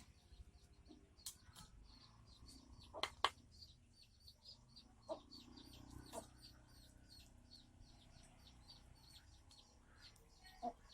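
Faint, quick high chirps repeating about three times a second, as from a small bird, over near silence. A few sharp knocks or clicks are heard, the loudest a pair about three seconds in.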